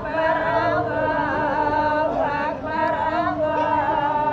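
Voices chanting together, a slow melodic chant sung in long held notes with short breaks between phrases.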